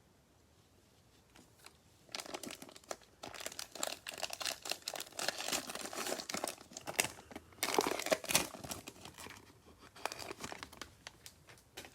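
Cellophane wrapper of a football card cello pack being torn open and crinkled. The crackling starts about two seconds in, is loudest past the middle and dies away near the end.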